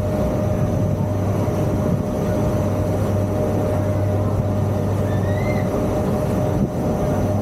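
Steady low engine drone of a tour ferry, heard on board while the boat cruises.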